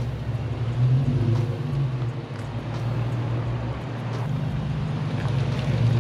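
Car under way, most likely the 2012 Infiniti G37 sedan with its 3.7-litre V6: a steady low engine drone mixed with road noise, swelling slightly near the end.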